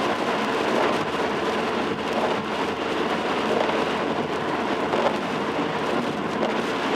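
Steady hiss of rain and tyres on a wet road, heard from a moving car.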